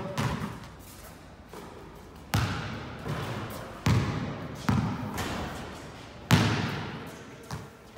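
Basketball bouncing on a gym floor: about half a dozen irregular bounces from about two seconds in, each followed by a long echo in the hall.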